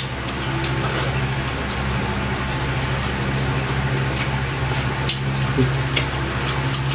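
Wet chewing and lip-smacking of people eating saucy octopus adobo by hand, with scattered small clicks, over a steady low hum.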